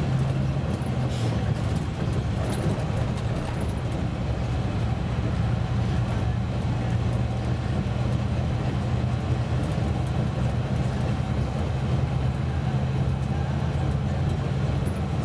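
Karosa C954E bus's diesel engine running steadily while the bus drives along an open road, heard inside the cabin, with tyre and road noise.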